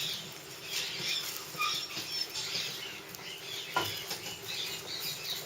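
Puppies moving about and chewing, a scatter of small pattering sounds with a couple of brief high squeaks.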